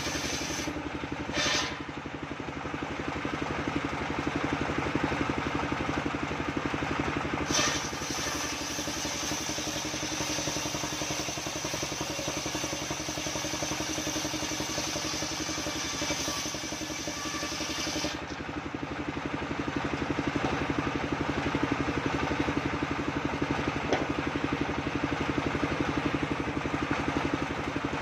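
Engine-driven homemade circular sawmill running steadily while its blade rips a coconut-wood log lengthwise. A harsher, brighter cutting noise rides over the engine hum from about eight seconds in until about eighteen seconds.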